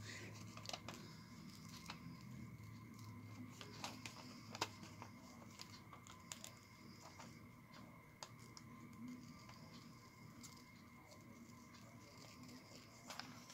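Faint, irregular snips of small scissors cutting close around a picture on thin printed paper, with light rustling as the paper is turned between cuts; the sharpest snip comes about four and a half seconds in.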